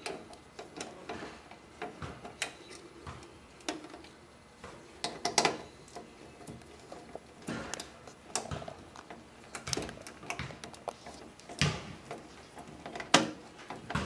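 Irregular small clicks and scrapes of a screwdriver working the wire terminal screws on a garage door opener as wires are fastened to them.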